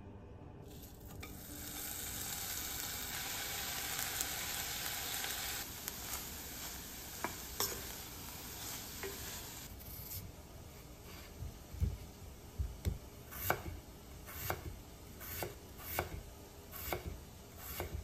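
Onion sizzling in hot olive oil in an enamelled cast-iron pot, loudest in the first few seconds and then dying down. From about ten seconds in, a kitchen knife slicing a peeled potato on a wooden cutting board, a sharp knock about once a second.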